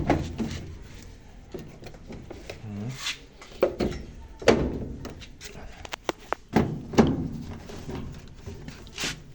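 Scattered knocks and clunks of a washing machine's cabinet panel and its screws being handled and fitted during reassembly.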